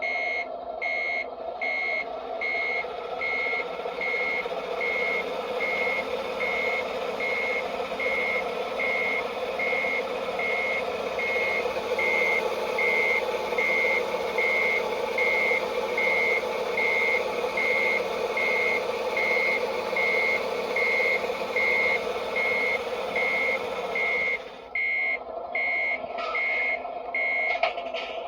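Servonaut sound module in an RC MAN dump truck playing a reversing beeper: short high beeps at about one and a half a second, over a steady simulated truck engine. Near the end the engine sound drops away and a few more beeps follow.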